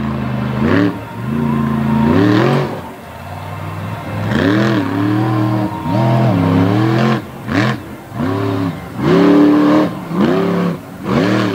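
Monster truck engine revving over and over during a freestyle run, its pitch climbing and falling with each throttle stab about once a second, with short steady stretches between.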